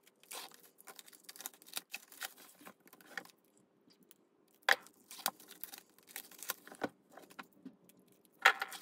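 Plastic shrink wrap being peeled off album packages: irregular crinkling and rustling with light taps from handling, louder about halfway and again near the end.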